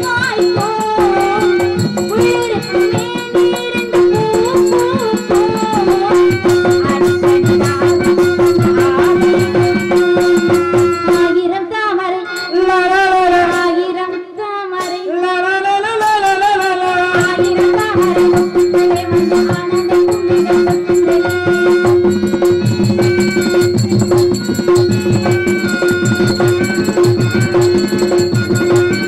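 Tamil folk stage-drama music: a voice singing over a steady drone, with a regular hand-drum beat and rattling percussion.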